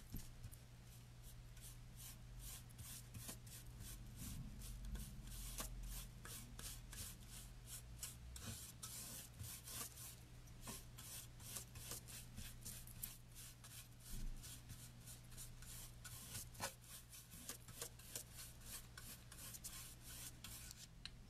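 Paintbrush dry-brushing paint onto a wooden board: the nearly dry bristles scratch across the wood in quick repeated strokes, about three a second.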